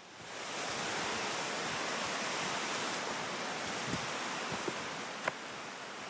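Steady rushing of running water from a mountain stream, fading in at the start. A few light footsteps on the leaf-strewn trail come in the second half.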